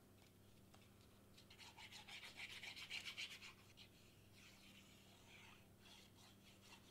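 Faint scratchy rubbing of the fine tip of a Bearly Art glue bottle dragged in zigzags across cardstock as glue is squeezed out, strongest from about one and a half to four seconds in.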